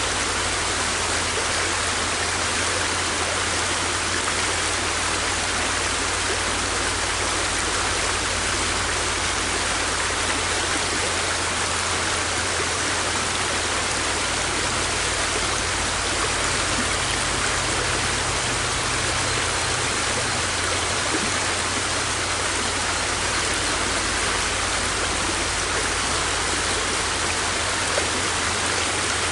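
River water rushing steadily, an even unbroken flow.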